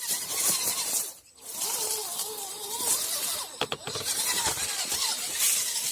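Electric motor and gearbox of an RC rock crawler whining, its pitch wavering up and down with throttle and load, over a rustling hiss from the tyres in dry leaves. It cuts out briefly about a second in, and a few sharp clicks come in the middle.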